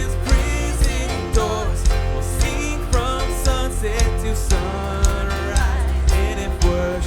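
A live worship band playing a song: steady drums and bass under guitars and keys, with a melody line that may be sung.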